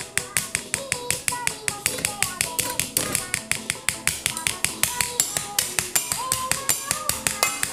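Background music: a melody over a quick, even tapping beat of about five taps a second.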